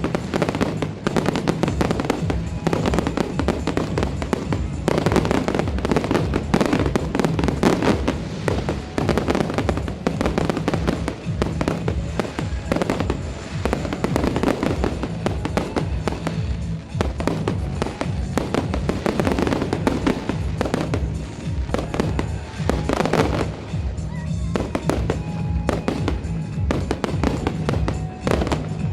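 Fireworks display: dense, continuous bangs and crackles of exploding shells, with music playing underneath.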